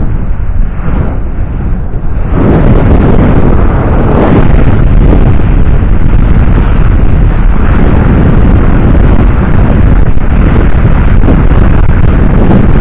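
Heavy wind buffeting on an action camera's microphone while riding an e-bike, a loud, steady rumble with no pitched sound in it; it gets louder about two seconds in.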